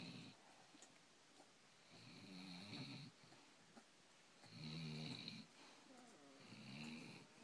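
Basset hound snoring in its sleep: three full pitched snores, each about a second long, roughly every two seconds.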